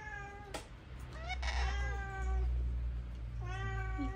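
Domestic cat meowing three times in drawn-out calls, the middle one the longest, over a low rumble.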